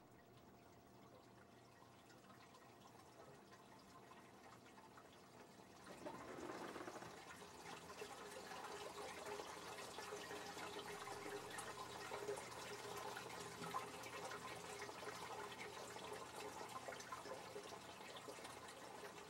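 Faint steady hum. About six seconds in, a soft crackling hiss of running, spattering water starts and carries on.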